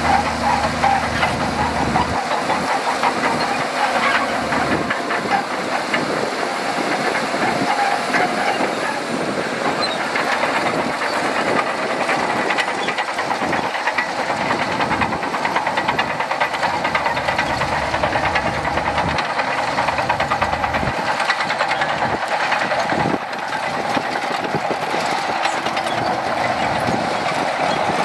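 Shantui DH17C2 bulldozer's diesel engine running steadily under load while it pushes sand, with a continuous rapid clatter.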